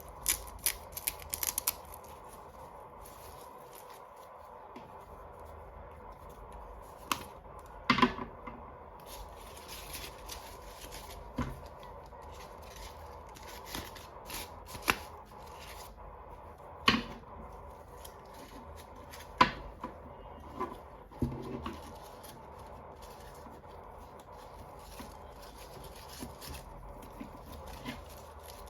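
Small plastic toy pieces and packaging handled by hand: a quick run of clicks and taps in the first two seconds, then single sharper clicks and taps every few seconds, over a faint steady hum.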